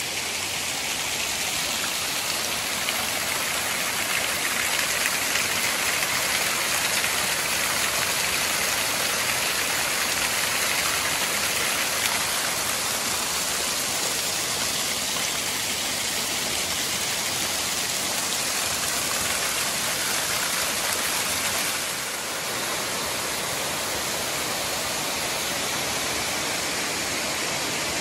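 Steady rush of water from waterfalls spilling into a shallow rocky pool and stream, an unbroken noise that eases slightly about 22 seconds in.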